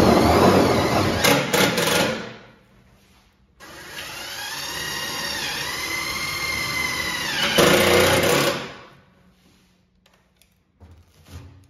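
Cordless drill-driver running in two long runs, its motor pitch dipping and rising under load as it drives a hose-clamp screw on the engine's air-intake coupler. The second run ends in a louder, rougher burst, followed by a few light clicks near the end.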